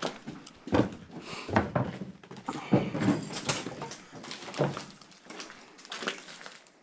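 Footsteps over a debris-littered floor: irregular thuds with crunching and scraping, roughly one step a second.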